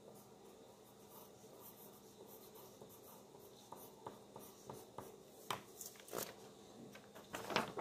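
Faint rustling of spiral notebook paper being handled, with scattered brief crinkles that come more often in the second half.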